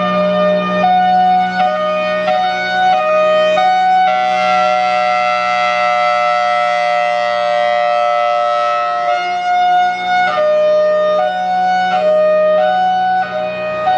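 Federal Signal Thunderbolt 1003 civil-defence siren sounding a hi-lo alert: a loud two-tone wail that switches between a higher and a lower pitch about every three quarters of a second. About four seconds in it holds the higher tone steadily for around five seconds, then resumes alternating. A steady low drone runs beneath it throughout.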